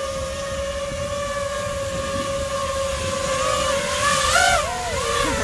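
FPV drone's motors and propellers whining at a steady pitch, then swinging up and down in pitch near the end as the throttle is worked.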